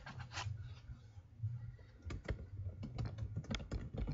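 Computer keyboard typing: scattered keystrokes with a quicker run about three seconds in, over a steady low hum.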